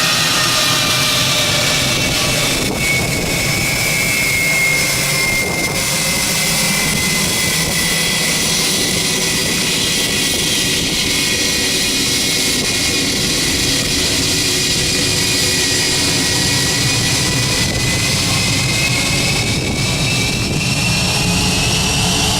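Airbus A320's twin turbofan jet engines running at taxi power: a steady, loud roar with a high whine that slowly dips in pitch and rises again near the end.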